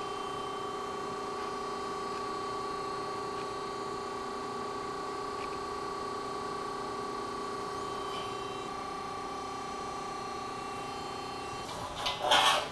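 Steady machine hum of the CNC press brake's running hydraulic unit, holding several fixed tones, which drops away about a second before the end. Just after, a brief loud noise, most likely the bent stainless channel being handled.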